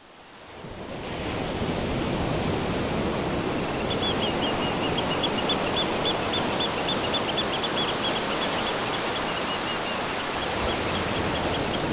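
Steady wash of sea surf, fading in over the first second or so, with a run of quick, high chirps from about four seconds in.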